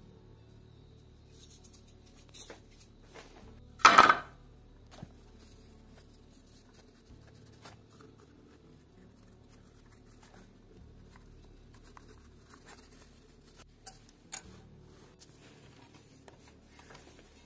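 Hand work on a wooden board: faint scratching, with one loud rasping stroke about half a second long about four seconds in, and two sharp clicks near the end.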